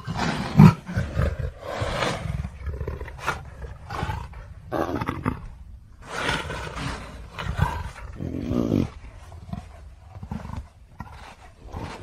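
Leopard roaring: a run of rough, rasping roars and grunts, about one a second. The calls start abruptly.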